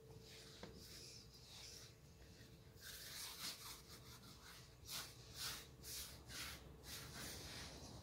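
Faint rubbing and scuffing of hands kneading soft bread dough on a floured tabletop, in a run of short strokes from about three seconds in.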